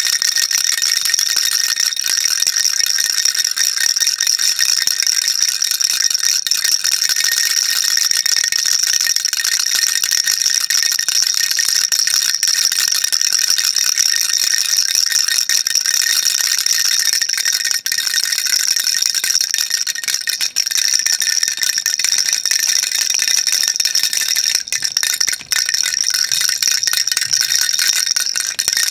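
Baby rattle shaken continuously, a dense, steady, high-pitched rattling of small beads inside it, with a few brief gaps near the end.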